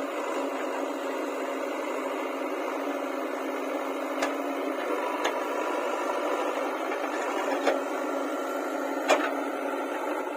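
Backhoe loader running steadily, with four sharp knocks spread through the second half.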